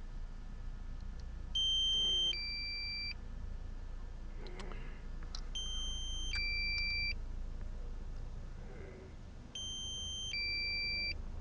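Drone remote controller sounding its low-battery warning: a two-tone beep, a lower tone then a higher one, repeated three times about four seconds apart.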